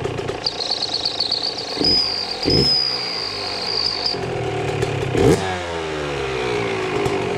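Yamaha YZ125 single-cylinder two-stroke engine running on the stand with a turbo whistle fitted in its exhaust, giving a high steady whistle over the engine for the first few seconds. The throttle is blipped three times, about two, two and a half and five seconds in, and after the last blip the revs fall away slowly.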